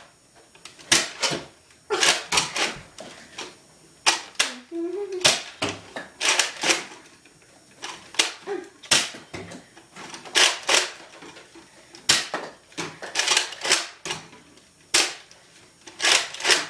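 Nerf foam-dart blasters being primed and fired in a long, irregular series of sharp snaps and clacks, sometimes several in a second, sometimes with pauses of a second or more.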